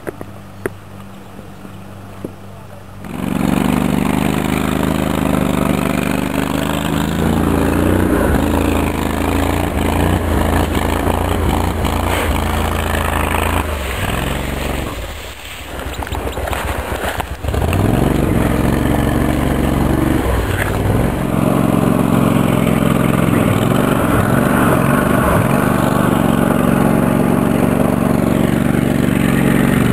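All-terrain vehicle's engine running under load as it drives through tall grass; it picks up sharply about three seconds in, eases off briefly around the middle, then pulls steadily again.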